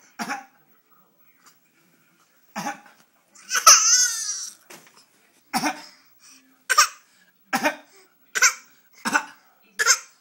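Repeated short, sharp coughs, about one every second towards the end, with a longer wavering voiced cough about three and a half seconds in.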